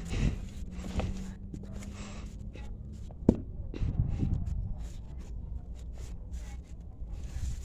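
A person breathing heavily close to the microphone, mixed with irregular clicks and knocks of movement or handling, and one sharp click about three seconds in.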